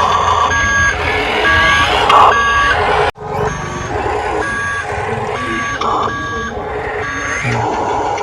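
Reversing beeper of an RC construction truck, about one short two-tone beep every three-quarters of a second, over a steady mechanical running noise. The sound breaks off sharply for a moment about three seconds in, then the beeping resumes.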